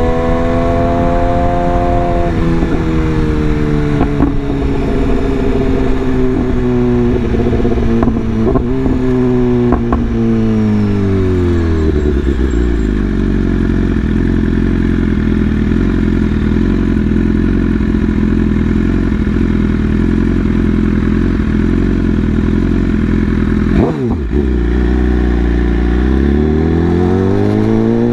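BMW S1000RR's inline-four engine slowing down, with a few sharp clicks as it gears down. It settles into a steady idle for about twelve seconds, with one click near the end, then revs rise again as it pulls away.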